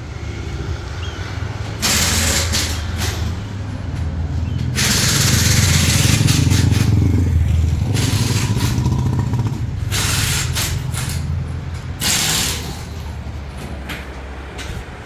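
A vehicle engine running with a steady low hum, overlaid by several loud bursts of rushing, hissing noise, the longest lasting about three seconds in the middle.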